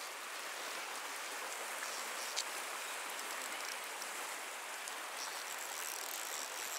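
River water rushing steadily over a shallow, stony riffle, with one small click about two and a half seconds in.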